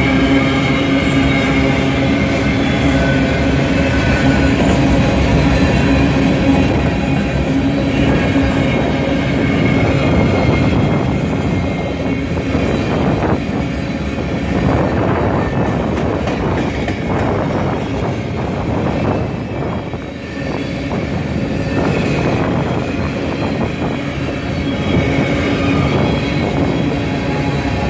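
Freight train of covered hopper cars rolling past close by: a steady loud rumble of steel wheels on the rails, with clacking of the wheels over the rail joints.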